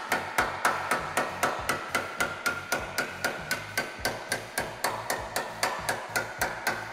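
Hammer repeatedly striking a sheet-steel panel flange clamped over a steel forming buck, about three to four even blows a second, knocking the flange down in hammer forming.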